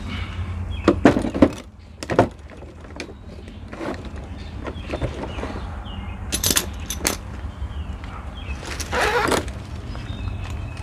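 Knocks and rustling as a coil of rope and gear are laid into a hard-shell suitcase with wooden dividers, a handful of sharp clunks among them, over a steady low rumble.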